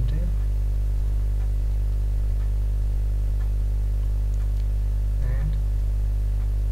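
Steady electrical mains hum, a 50 Hz buzz with a ladder of overtones, loud and unchanging throughout.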